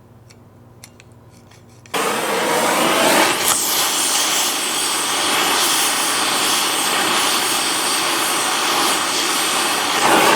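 A few faint clicks, then about two seconds in a gas torch flame comes on with a sudden loud, steady hiss that holds without a break. It is heating a worn GM door hinge part cherry red so it can be pounded tight.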